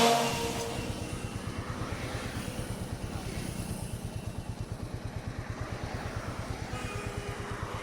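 Royal Enfield Meteor 350's single-cylinder engine idling, a steady even low thump of about nine beats a second.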